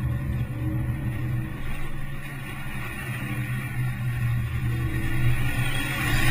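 Renault Mégane RS 265's turbocharged 2.0-litre four-cylinder engine running hard through a run of corners, easing off a couple of seconds in and building louder again near the end.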